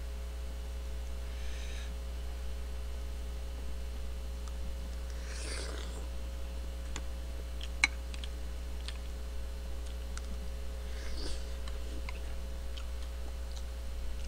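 Steady low electrical mains hum, with faint scattered clicks, a sharper click about eight seconds in, and two soft rustling noises about five and eleven seconds in.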